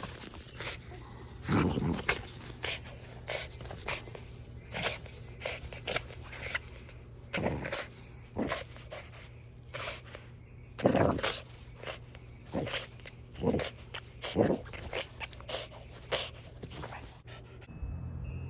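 A pet dog snuffling and moving about close by, a string of short irregular sounds about one or two a second, over a low steady hum.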